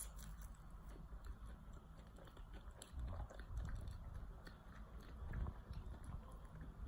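Close-miked chewing of a mouthful of filled, Biscoff-coated Krispy Kreme doughnut: soft, moist chewing with small clicks, swelling twice. A single sharp click right at the start.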